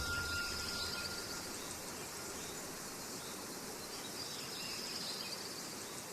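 Faint nature ambience: a steady hiss with insects chirping high up, swelling a little twice.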